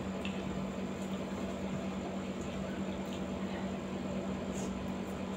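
Steady low hum over an even hiss, with a few faint clicks of a spoon and fork against tubs and plates while eating.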